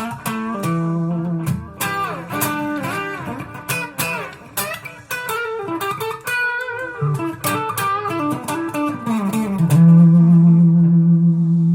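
Clean electric guitar played through a Zoom G5n multi-effects unit with chorus and tape delay on: a run of picked single notes, some of them bent, then a low note held and left ringing near the end, the loudest part.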